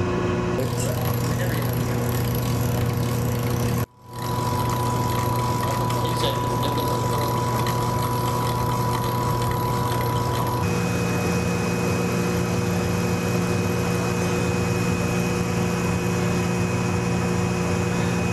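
Steady machinery hum of equipment in a missile silo, with several held tones. It drops out abruptly for a moment about four seconds in, and its mix of tones shifts about ten seconds in.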